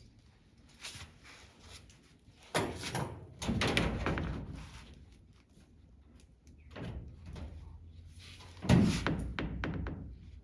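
A series of dull thumps and clattering knocks from a large plastic body sheet being handled and set against the race car's body. The loudest knock comes near the end.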